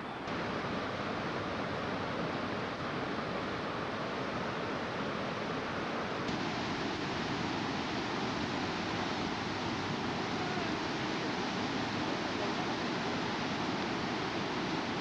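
Steady rush of flowing water, an even roar that shifts abruptly in tone just after the start and again about six seconds in.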